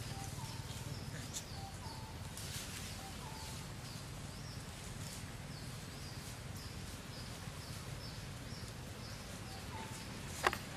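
Forest ambience: a bird repeats a short, high, falling chirp a little under twice a second, with an occasional lower whistled note, over a steady low rumble. A single sharp click near the end.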